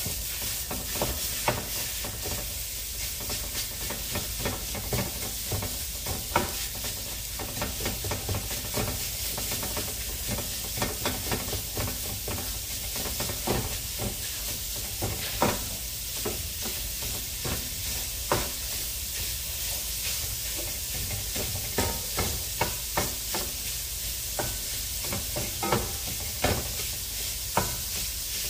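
Breakfast sausage sizzling as it browns in a skillet, with irregular clicks and scrapes as a meat chopper breaks it up against the pan.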